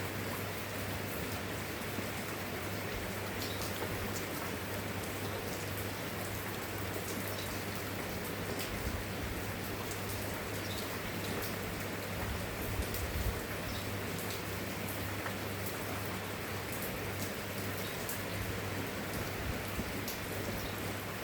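Steady rain falling on a surface, with individual drops clicking through the hiss. A steady low hum runs underneath.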